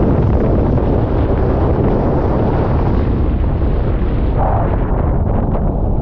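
Strong wind rumbling on the microphone over choppy water, with a Sea-Doo personal watercraft's engine running underneath.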